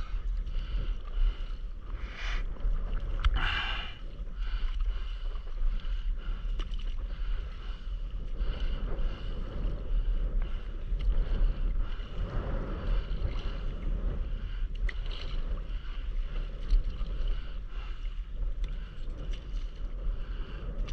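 Water lapping and sloshing against a stand-up paddleboard, with a steady low wind rumble on the microphone. Two short, louder splashes come about two and three and a half seconds in.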